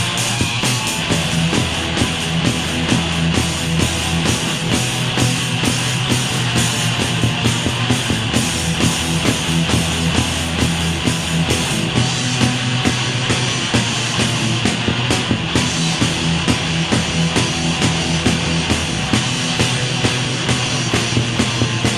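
Instrumental passage of a grunge rock band: distorted electric guitars, bass and drums with a steady beat of cymbal and snare hits, and no vocals.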